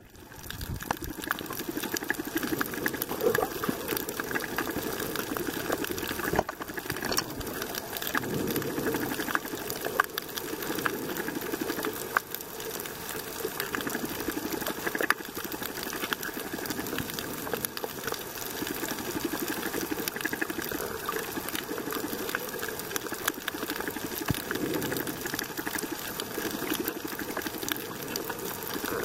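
Underwater ambience on a shallow coral reef, heard through a submerged camera: a steady rush of water that swells every few seconds, with many faint scattered clicks.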